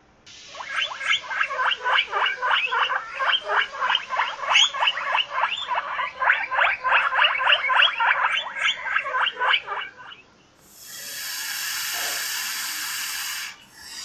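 A guinea pig squeaking in a fast run of short, high calls, about four a second, for nearly ten seconds. Near the end, a snake hisses steadily for about three seconds.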